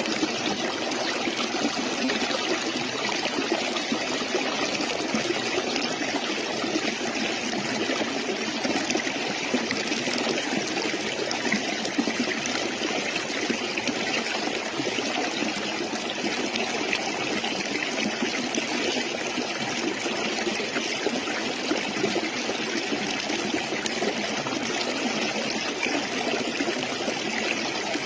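Stream water running and trickling steadily.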